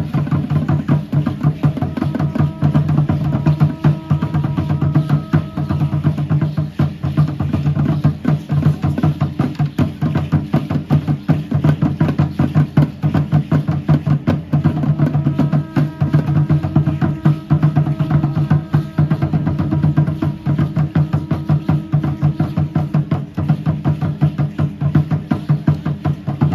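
Upright wooden huehuetl drums of Aztec dance beaten in a fast, steady, unbroken rhythm.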